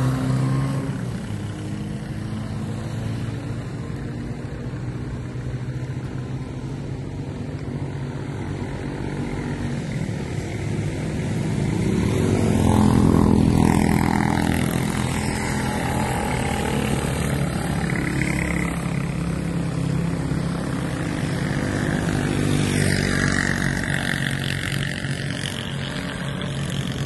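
A motor vehicle engine running steadily, growing louder about halfway through and then easing back.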